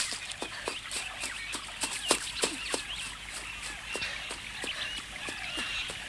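Birds chirping, with a quick, even patter of running footsteps at about three or four steps a second.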